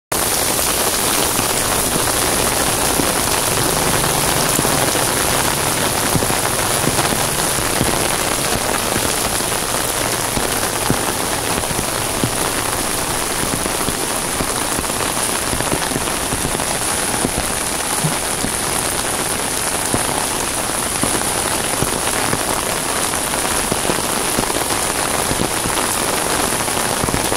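Heavy downpour falling steadily on wet pavement, a dense, even hiss with no let-up.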